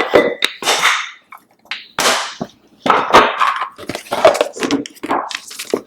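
Kitchen handling noises: a string of rustles and light knocks and clicks as green chillies are wiped dry and packed into storage containers, with a short clink near the start.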